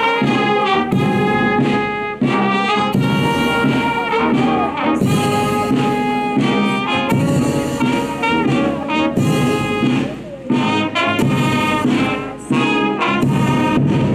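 Brass music playing, loud and continuous, with short breaks between phrases about ten and twelve seconds in.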